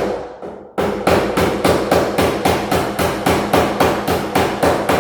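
A hammer driving a cable staple over electrical cable into a wooden framing member. It strikes in a quick, even rhythm of about three blows a second, with a short pause just after the start.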